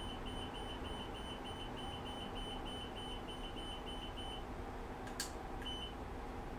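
Seesii battery spot welder's beeper giving a quick, even run of short, not very loud high beeps, about four or five a second, as its gear button is held down to step the setting up. The beeps stop a little past four seconds in, when the setting tops out at 8.0. A click and one more short beep follow near the end.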